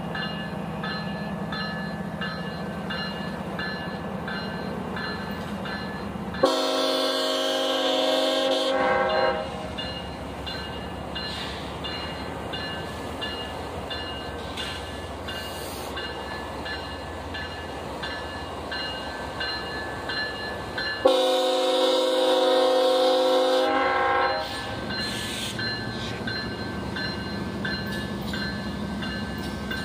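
CSX freight locomotive's air horn sounding two long blasts, each a chord of about three seconds, one about six seconds in and the other about twenty-one seconds in. A steady low rumble from the train runs underneath.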